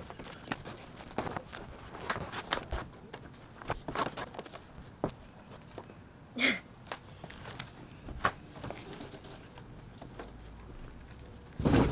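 Cardboard packaging being handled, shifted and dragged across a deck: scattered rustles, scrapes and light knocks, with a louder knock or thump near the end.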